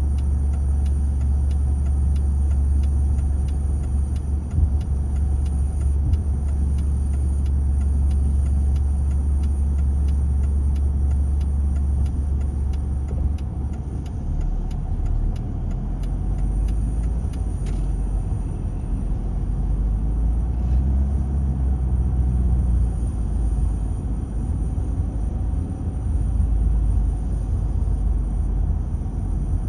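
Inside a car's cabin: a steady low engine and road rumble, idling at a stop and then pulling away about halfway through, with faint regular ticking in the first half.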